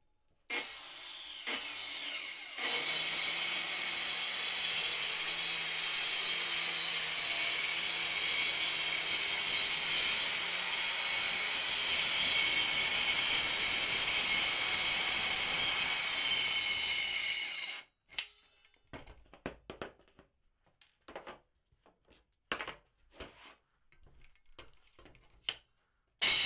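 Makita circular saw starting up and ripping a long strip of plywood, running steadily under load for about fifteen seconds before it stops suddenly. Scattered light knocks and clicks follow, and the saw starts again right at the end.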